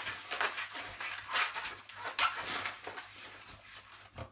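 A long dark green twisting balloon being inflated: a series of uneven rushes of air that die away near the end.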